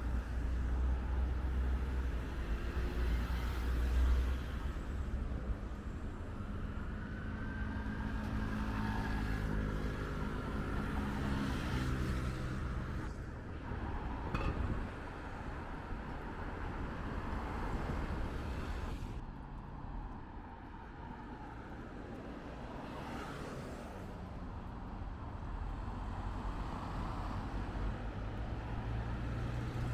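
City street traffic: cars and other motor vehicles driving past, with one engine's note standing out for a few seconds around the middle.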